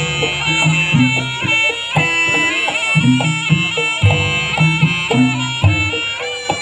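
Live jaranan ensemble music: a shrill reed trumpet (slompret) plays a held, wavering melody over a repeating pattern of low drum beats.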